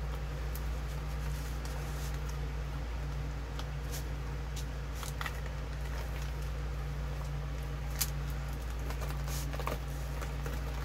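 Soft rustling and scattered faint crackles of a flexible silicone mold being peeled away from a freshly cast, still-soft resin piece onto parchment paper, over a steady low hum.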